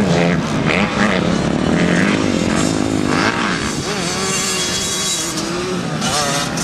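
Dirt bike engine on a motocross track, revving up and down as the throttle is worked, its pitch rising and falling repeatedly.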